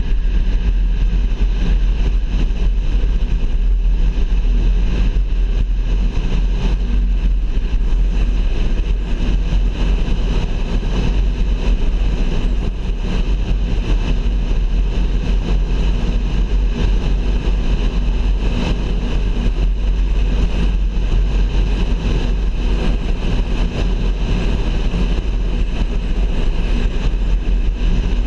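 Steady engine and tyre noise of a car driving along a highway, a low, unbroken rumble.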